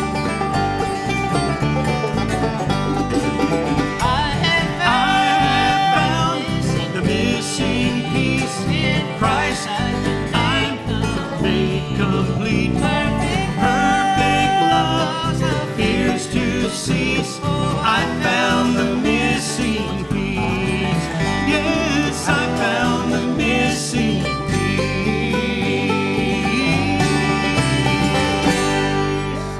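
Bluegrass-style gospel band playing an instrumental passage, with banjo and guitar picking.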